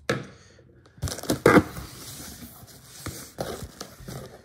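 Hands opening a cardboard shipping box: tearing and crinkling of tape and plastic packing, with a loud rip about a second and a half in and a few sharp knocks of cardboard later.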